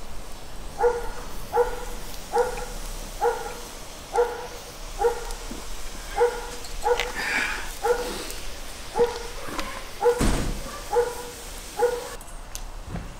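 A dog barking in a steady run of short, evenly spaced barks, a little more than one a second, that stop about twelve seconds in. There is a brief thump about ten seconds in.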